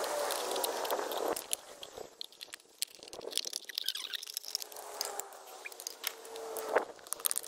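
Thin plastic bottles crackling and crunching as they are cut apart and handled, in a run of quick clicks and crinkles. A thin squeak near the end ends in a sharp snap.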